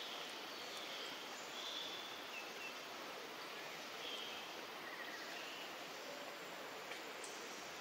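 Steady outdoor background hiss with scattered faint, short, high bird chirps.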